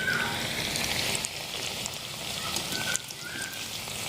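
Potato kachoris deep-frying in hot oil in a kadhai: a steady sizzle with scattered crackles, and a few brief squeaks near the start and about three seconds in.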